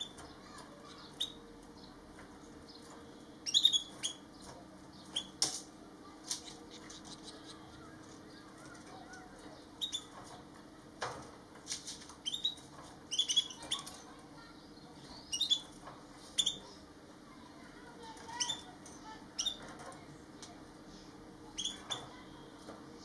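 Gouldian finches giving short, high chirps and clicks at irregular intervals, every second or two, over a faint steady low hum.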